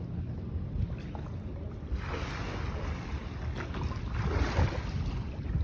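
Wind buffeting the microphone outdoors: a steady low rumble with two louder rushing gusts about two and four seconds in.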